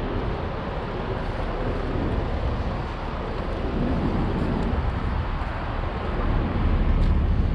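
Steady city-street traffic noise from cars at an intersection, a continuous rumbling hum with no single event standing out.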